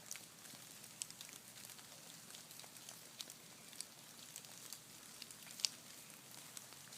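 Faint pitter-pat of rain, water drops hitting leaves, an irregular scatter of soft ticks, with one sharper drop a little past the middle.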